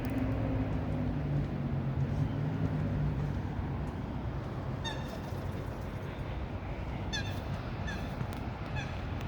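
A bird gives four short, high calls in the second half, over a steady low rumble of engine or traffic noise that is strongest in the first few seconds.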